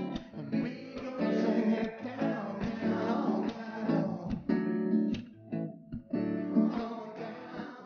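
Background music led by a plucked and strummed guitar.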